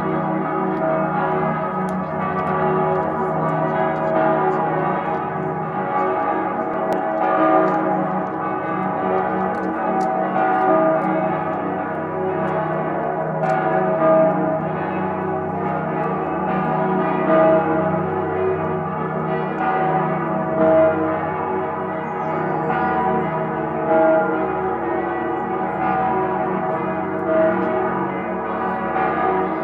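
Salzburg Cathedral's bells ringing in full peal, many bells sounding together without a break. Louder strokes stand out about every three seconds.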